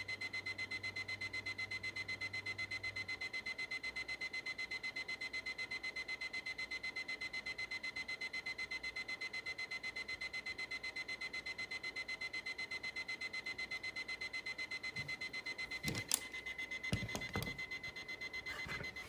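LEGO Star Wars stormtrooper alarm clock's alarm going off: a high electronic beep pulsing rapidly and evenly without a break. A few sharp clicks and knocks come near the end.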